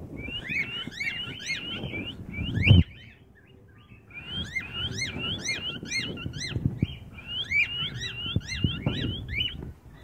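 Male cockatiel whistling a fast string of short rising-and-falling chirps in three bouts, in reply to whistling. A loud low thump comes just before a short pause about three seconds in.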